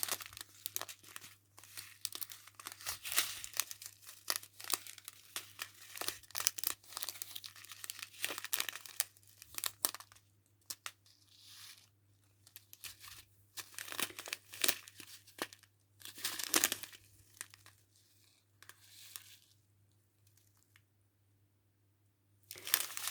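Plastic packaging crinkling and rustling as small bags of diamond painting drills are handled, in irregular crackly bursts that stop a few seconds before the end.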